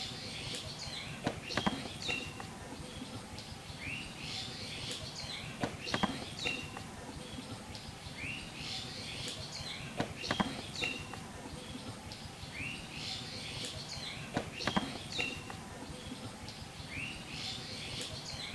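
Birds chirping: a short phrase of high chirps that repeats about every four seconds, each time followed by a couple of sharp clicks.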